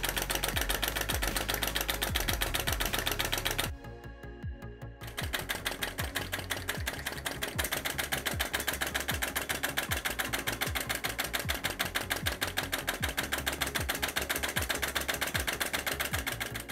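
Small brass flame-licker (vacuum) engine running fast with a rapid, even mechanical clatter. The clatter breaks off for about a second roughly four seconds in, then resumes.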